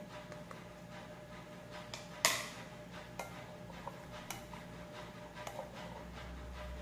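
Light clicks and knocks of a spatula against a plastic container and a ceramic salad bowl as tomato strips are scraped in and stirred, with one sharp knock about two seconds in. A faint steady hum runs underneath.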